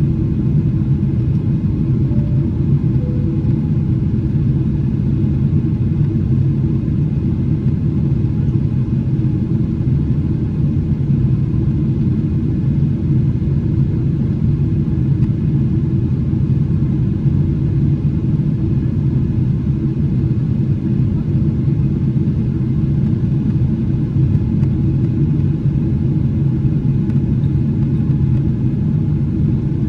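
Steady low rumble of engine and airflow noise inside the cabin of a Boeing 777-300ER, powered by GE90 turbofans, in flight after takeoff.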